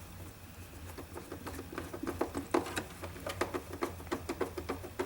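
Hand Torx screwdriver turning a screw into the plastic underside of a sewing machine: a run of small irregular clicks and ticks, several a second, starting about a second in.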